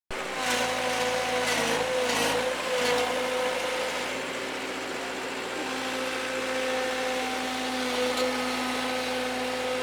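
Skid-steer loader's engine running steadily with a constant hum, its pitch sagging briefly about two seconds in, with a few knocks in the first three seconds.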